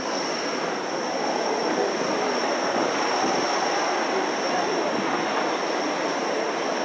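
A street tram running close by: a steady rumble with a constant high-pitched whine that sets in suddenly at the start and holds throughout.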